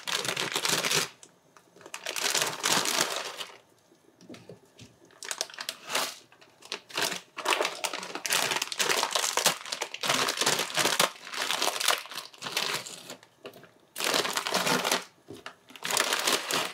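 Plastic instant-noodle packets crinkling as they are handled and opened, in bursts with short pauses between.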